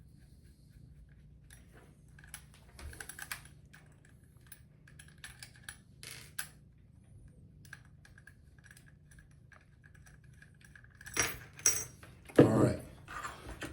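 Small metal clicks and taps from handling a hair trimmer's blade and screws while adjusting it, getting busier near the end with a few louder knocks and one heavier thump.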